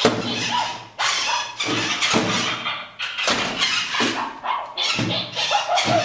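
Robot dog toy making loud electronic sound effects from its built-in speaker, in choppy roughly one-second bursts, while it performs a stunt move.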